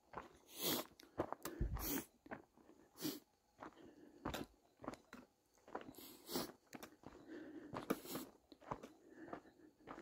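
A hiker's footsteps crunching on a dirt and gravel trail, an uneven series of crisp crunches about one a second.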